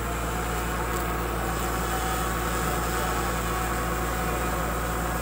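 A machine running with a steady low hum that does not change.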